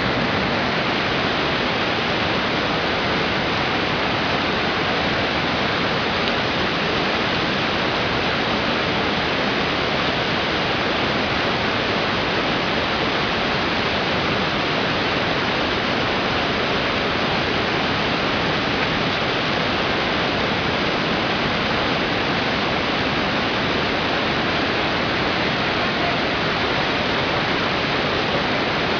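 Water rushing steadily, a continuous even roar that does not change.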